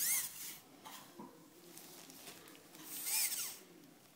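Low-speed dental handpiece with a prophy cup polishing a molar with paste, running in two short bursts, one at the start and one about three seconds in, its whine rising and then falling in pitch each time.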